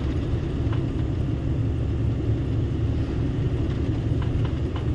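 Heavy goods truck's diesel engine and road noise heard from inside the cab while driving at a steady speed: a steady low rumble.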